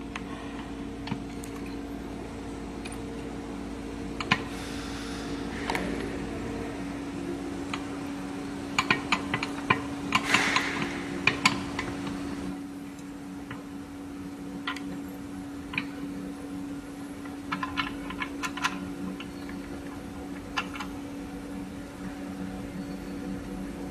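Scattered clicks and light metal knocks as a wire is handled and clamped into the metal jaws of a manual pull tester, with a cluster of louder clicks and a rustle about halfway through, over a steady low hum.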